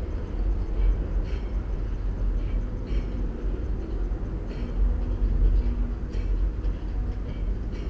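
Dresden suspension railway's cable-hauled hanging car running along its overhead steel rail: a steady low rumble with faint, light clicks every second or two.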